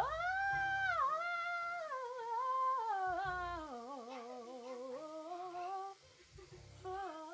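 A child humming or singing a wordless tune. It opens with a quick upward slide to a high note, then wanders gradually lower in pitch with a wavering voice, breaks off briefly near the end, and starts again.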